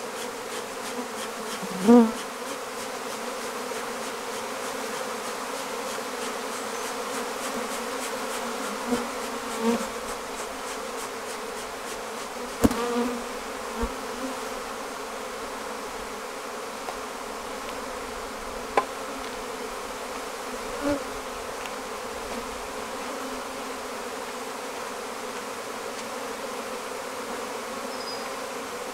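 A defensive honeybee colony buzzing steadily in the air around its opened hive. Single bees buzz loudly close past the microphone several times, the loudest about two seconds in, and there are a few sharp clicks.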